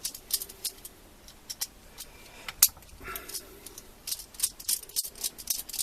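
Small metal parts of a ratchet being disassembled, clicking and ticking sharply and irregularly, several times a second, as the screws and cover are worked loose. There is a brief scrape about three seconds in.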